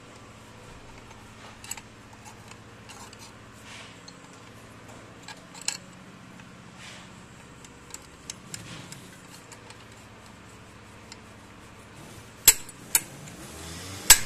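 Metal parts clinking and tapping against a power tiller's cast gearbox housing as the clutch lever and fork are fitted by hand: scattered light clicks, then three sharp metal clacks in the last two seconds.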